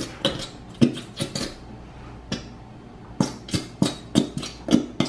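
A plastic bottle of glow-in-the-dark glue squeezed upside down over a plastic tub, giving a dozen or so short, sharp clicks and pops at uneven intervals as the glue is forced out.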